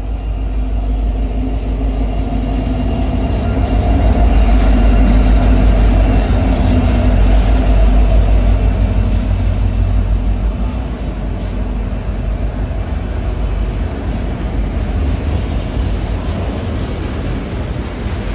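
Freight train passing close by: the drone of two BNSF diesel locomotives builds to its loudest about four to ten seconds in, then gives way to the steady rumble and clatter of autorack cars' wheels on the rails.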